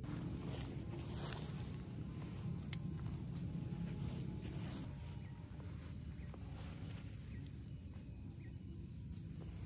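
Outdoor ambience: a steady low rumble with a few faint clicks, and a high chirping call repeated quickly, about six chirps a second, in two runs.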